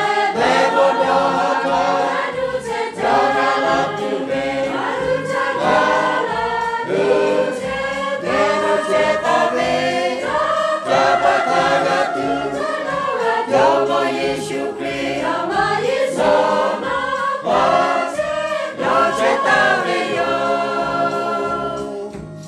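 Choir singing a hymn in four-part harmony, ending on a long held chord near the end.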